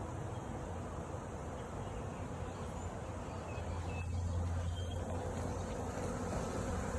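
Swarm of honeybees buzzing in a steady low hum.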